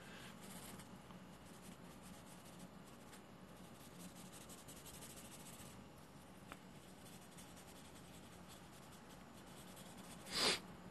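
Faint scratching and rubbing of graphite drawing tools on paper: soft pencil strokes and blending. A louder brief hiss comes near the end.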